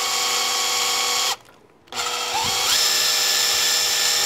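Makita cordless drill boring into the wrist of a wooden Krag rifle stock: a steady motor whine that cuts off about a second in, then starts again after half a second's pause and climbs in pitch back up to speed.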